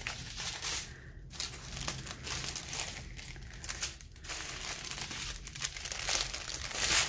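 Small plastic bags of diamond-painting drills and the canvas's clear plastic cover film crinkling as they are handled and slid around, in irregular bursts, loudest near the end.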